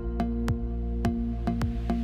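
Background music: held chords over a steady drum beat, about two beats a second.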